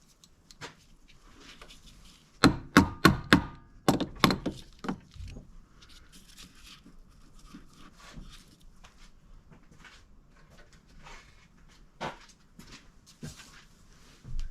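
Sharp knocks: four in quick succession, a few more just after, and one more knock near the end, over low background clatter.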